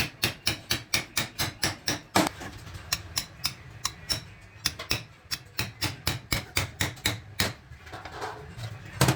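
Hammer striking metal during gearbox repair: quick taps, about five a second, in several runs with short breaks, then one heavier blow near the end.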